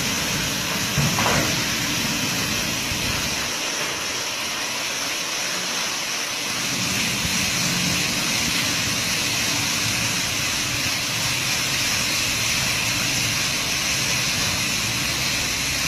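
Steady hissing noise, with a low rumble underneath that drops away for a few seconds about three to four seconds in and then returns.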